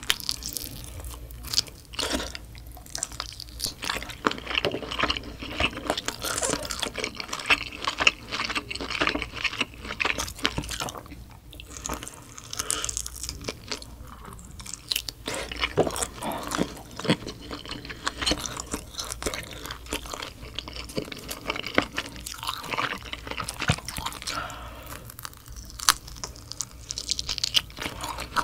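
Close-miked chewing and biting of LA galbi, thin-cut marinated beef short ribs eaten off the bone by hand, making a dense run of small mouth clicks.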